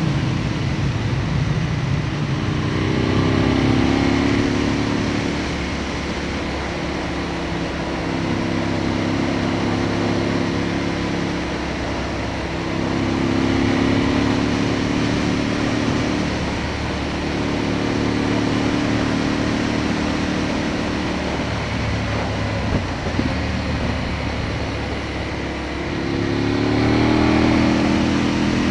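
Aprilia Tuono motorcycle engine pulling along the road, the revs rising and easing off a few times as the rider accelerates and backs off, over a steady rush of wind on the camera.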